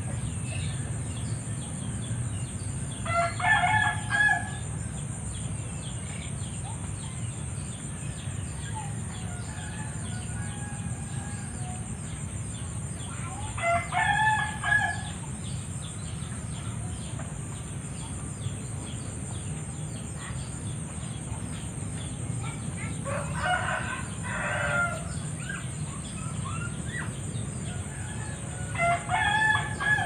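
A rooster crowing four times, about ten seconds apart, over a steady high-pitched insect drone.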